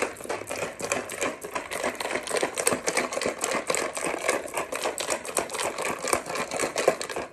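Ice cubes rattling inside a cocktail shaker as it is shaken hard to mix the drink: a fast, continuous clatter of ice against the shaker walls that stops abruptly at the end.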